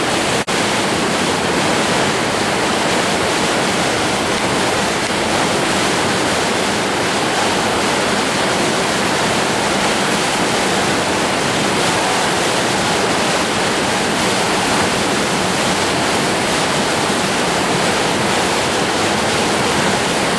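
Whitewater river rapids rushing: a loud, steady wash of moving water, with a brief break about half a second in.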